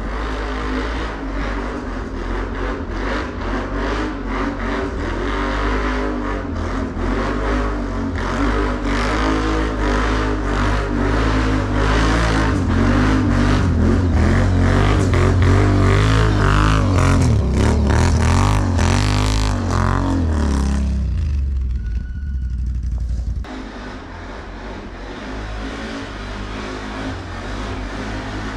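Can-Am ATV's V-twin engine revving under load on a snowy uphill climb, its pitch rising and falling with the throttle. About 21 seconds in it drops away suddenly, and a quieter engine sound picks up again shortly after.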